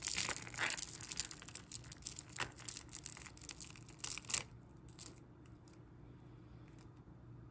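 Metal chains and beads of costume-jewelry necklaces clinking and rattling as they are dragged and handled on a mat. The clatter is dense and crackly, peaks about four seconds in, then stops about five seconds in.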